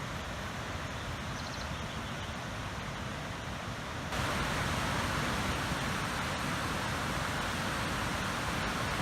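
Steady rushing noise of a waterfall, stepping up suddenly louder and brighter about four seconds in.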